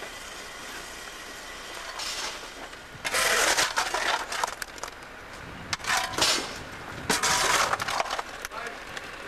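Large lumps of coal clattering and knocking together as they are gathered from a coal heap and tossed, in three loud bursts starting about three seconds in, with odd lone knocks between.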